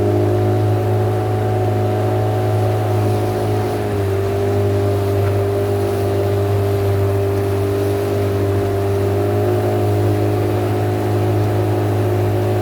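A boat's engine running steadily while under way on the river, its pitch shifting slightly a few times.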